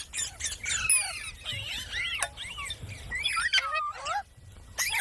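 Pet green parrot squawking and chattering in a run of short, sliding calls, easing off shortly before the end.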